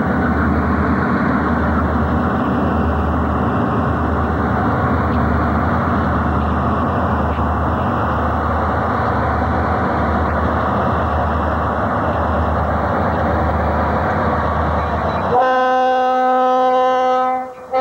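Diesel freight locomotives working past, a steady rumble with a low throb about once a second. About fifteen seconds in, the lead locomotive's air horn comes in with a long held chord that breaks off briefly near the end.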